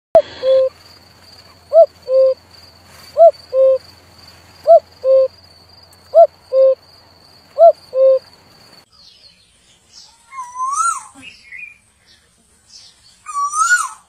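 Common cuckoo calling its two-note 'cuck-oo', high note then low, six times about a second and a half apart. After a cut at about nine seconds, an Asian koel gives two rising-then-falling calls.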